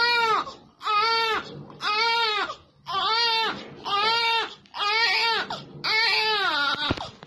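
Newborn baby crying in a steady run of wails, about one a second, each one rising and then falling in pitch.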